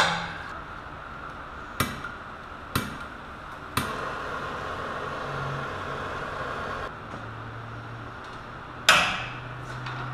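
Sharp metallic clanks of a wrench on a seized exhaust nut, a few of them spaced about a second apart. Then a click and a propane torch hissing for about three seconds as the stuck nut is heated to free it. A loud clank comes near the end.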